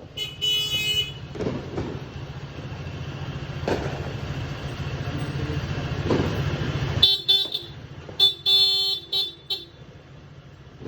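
Vehicle horns honking in repeated toots to greet the New Year: a couple of blasts at the start, then a burst of several short and long toots in the second half. A steady low engine rumble runs under the first part and stops about seven seconds in, with three sharp bangs along the way.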